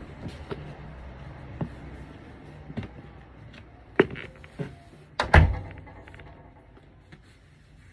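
A few scattered light knocks and clicks, with a heavier thump a little past five seconds in.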